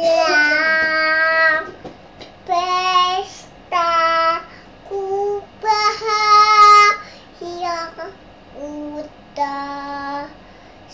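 A young girl singing an improvised song of her own, unaccompanied, in short phrases of held notes with brief pauses between them.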